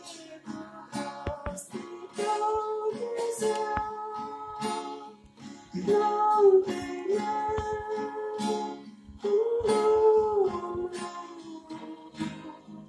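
A solo voice singing a slow melody with held, gliding notes, accompanied by a strummed acoustic guitar.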